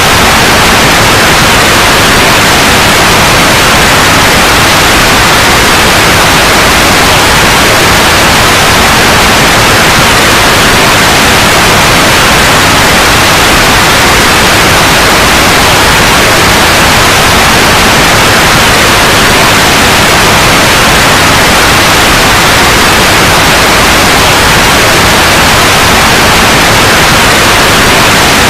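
Loud, steady white noise.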